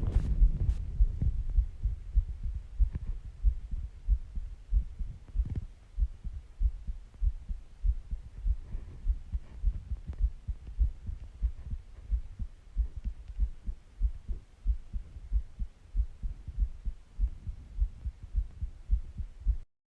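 Heartbeat: a steady run of low, regular thumps, a little louder in the first couple of seconds, cutting off suddenly near the end.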